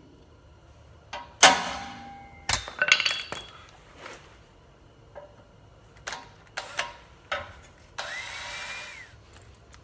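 Sharp metal clanks and knocks as tools and the header are handled, the loudest about a second and a half in. Near the end a drill runs for about a second with a hiss, its whine rising, holding and dropping as it spins up and stops.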